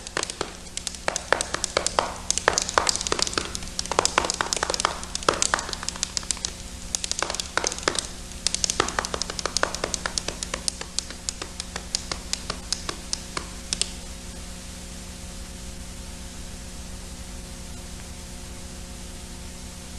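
Irregular sharp taps and clicks, scattered and uneven in loudness, thinning out and stopping about fourteen seconds in. After that only a steady hiss with a low hum remains.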